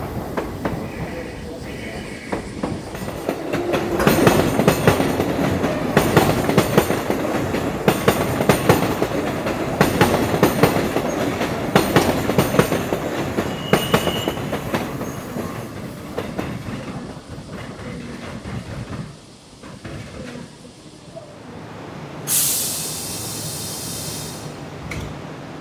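Kintetsu electric trains running over station pointwork, the wheels clacking over rail joints in a rapid irregular series with a brief wheel squeal about 14 seconds in. Near the end, a sudden loud hiss of air that dies away over a few seconds.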